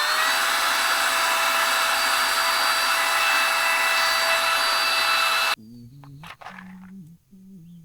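Electric air blower feeding the forge running at full speed with a steady whine, having just spun up, then cutting off suddenly about five and a half seconds in. A few knocks follow.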